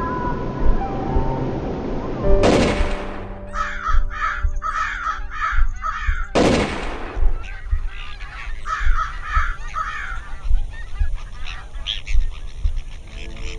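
Geese honking in a series of repeated calls, with two loud sudden bursts about two and a half and six and a half seconds in.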